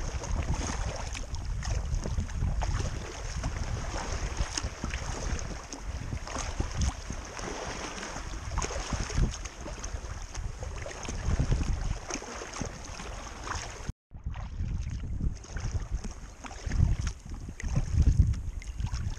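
Wind buffeting the microphone over water lapping and splashing against an inflatable kayak paddled through choppy sea. The sound cuts out for an instant about two-thirds through.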